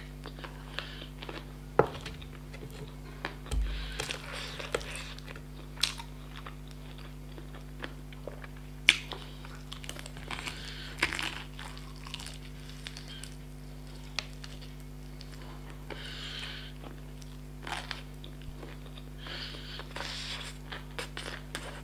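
Close-miked biting and chewing of fried chicken: crunches of the crispy breaded skin and wet mouth sounds, with a few sharp cracks spaced irregularly through.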